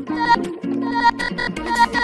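Hardtekk electronic dance music: a synth riff of short, repeated pitched notes, with a deep bass coming in near the end.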